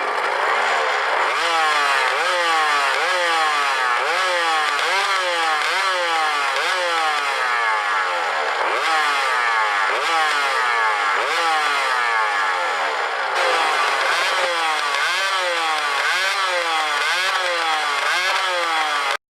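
Honda NSR250 (MC21) two-stroke V-twin revved in quick repeated throttle blips through its stock silencer, which has been modified into a straight-through design. After a moment of steady running, each blip rises sharply in pitch and falls back, about one every three-quarters of a second. The sound cuts off suddenly near the end.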